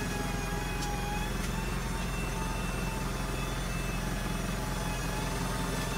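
Mitsubishi Canter's 4M50 4.9-litre four-cylinder turbo diesel idling steadily, heard from inside the cab, with two light clicks about a second in.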